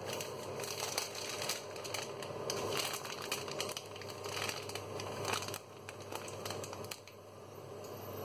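Plastic spaghetti packet crinkling and rustling as it is handled, a dense run of crackles that eases off near the end.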